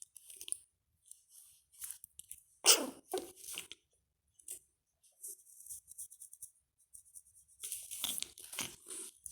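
Pomeranian puppy playing: scratchy scuffling and chewing noises, with a few short, sharp sounds from the dog, the loudest about three seconds in and another cluster near the end.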